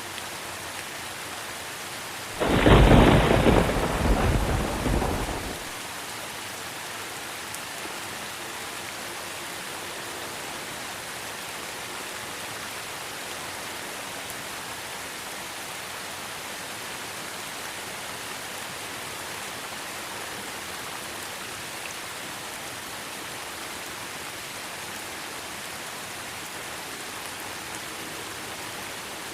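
Steady rain falling. A loud rumble of thunder breaks in about two and a half seconds in and dies away after about three seconds.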